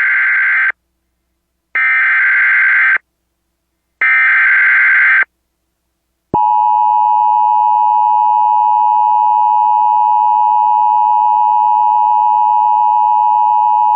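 A radio station's Emergency Alert System broadcast. Three bursts of SAME header data tones, a shrill warble about a second long each, are followed by the steady two-tone EAS attention signal starting about six seconds in. The tones introduce a National Weather Service severe thunderstorm warning.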